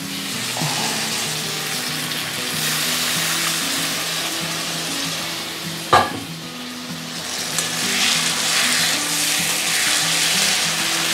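Onion, ginger and garlic masala paste sizzling as it fries in oil in a wok, with a steady hiss that grows louder in the second half. A single sharp knock comes about six seconds in.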